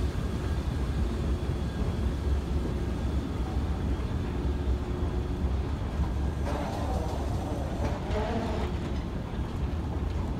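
Escalator machinery running with a steady low rumble. A wavering higher sound rises over it for about two seconds past the middle.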